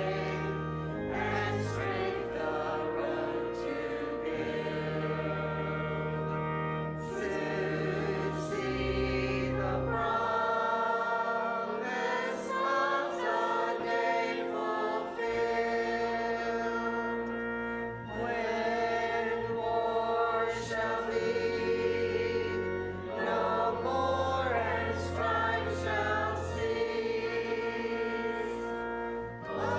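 A church choir singing with instrumental accompaniment, held notes and changing chords over a sustained bass line.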